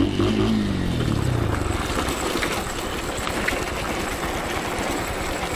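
Trail motorcycle engine dropping in revs, its pitch falling over the first two seconds, then running on steadily under a rough, even noise.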